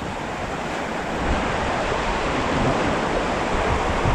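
Rushing river rapids: a steady rush of water, with wind buffeting the microphone and the rush growing a little louder about a second in.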